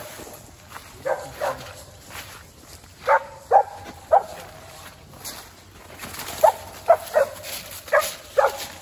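Squirrel dog barking treed, about ten short barks in clusters of two or three, the sign that it has a squirrel up a tree.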